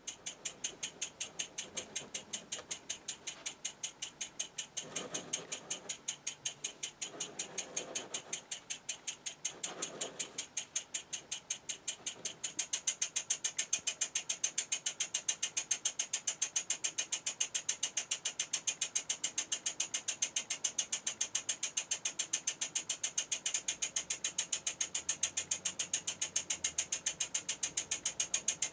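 Wig-Wag single-acting oscillating (wobbler) model steam engine running at speed, its cylinder exhausting in rapid, even puffs. It picks up speed in the first second and gets louder about twelve seconds in.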